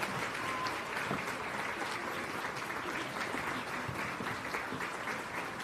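An audience applauding steadily, with many hands clapping at once.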